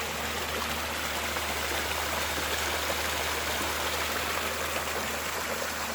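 Water from a small waterfall rushing steadily, an even hiss of falling water.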